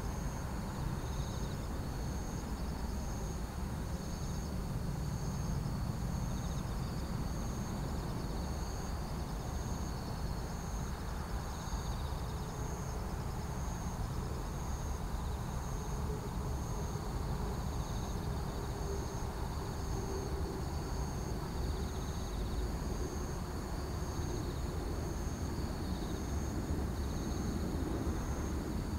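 Insects chirping in a steady, regular rhythm over a low rumble, with the faint drone of an approaching Airbus A380-861's Engine Alliance GP7200 engines coming in from about halfway through, slowly falling in pitch.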